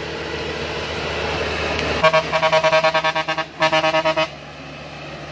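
A Dongfeng Trường Giang 8-ton diesel truck's engine runs steadily. About two seconds in, its horn sounds twice, with a fast-fluttering tone: a longer blast, then a shorter one. The engine carries on more quietly afterwards.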